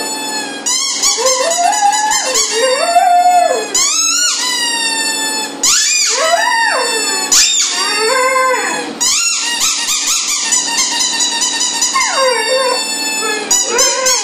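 A young dog howling in long calls whose pitch slowly rises and falls, with short breaks between them.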